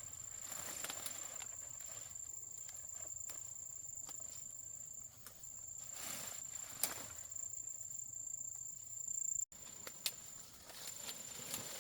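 Scattered light footsteps and small knocks over a steady high-pitched insect drone.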